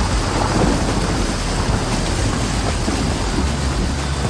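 Water splashing and churning around an SUV's front tyre as it drives through a shallow river crossing, with a steady low rumble underneath.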